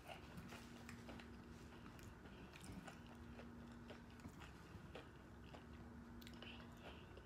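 Close-miked chewing and biting of a hard-shell taco, with irregular crisp crunches of the shell between the teeth.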